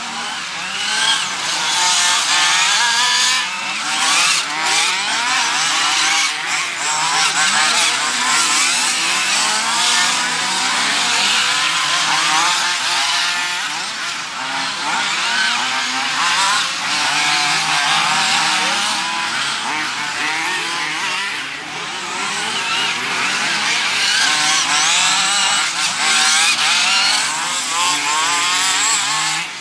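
Several radio-controlled off-road racing buggies' small engines buzzing at high revs, their pitches rising and falling as they rev up and back off. Several engines overlap throughout.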